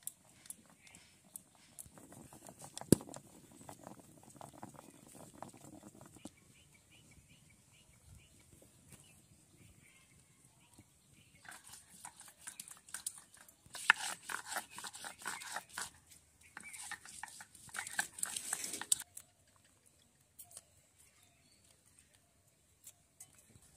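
Hand food-preparation sounds: dense clicking and knocking of kitchen work early on, then two spells of rapid, harsh scraping in the second half, from a stone grinding on a wooden grinding board.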